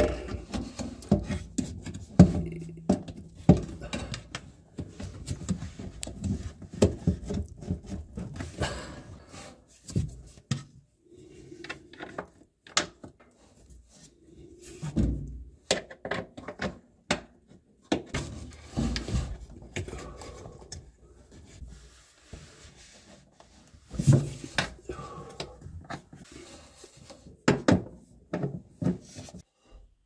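Hard plastic parts of a washing machine's replacement drain pump knocking, clicking and rubbing against the tub's outlet and mounting as the pump is pushed and worked into place by hand. The thunks and scrapes come irregularly, in clusters.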